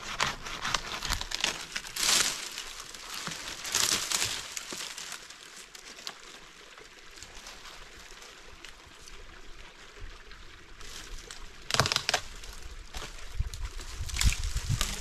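Bark scraping and dry twigs crackling and rustling as a man climbs a thin tree barefoot, with four louder crackles spread through, the sound quieter for a few seconds in the middle.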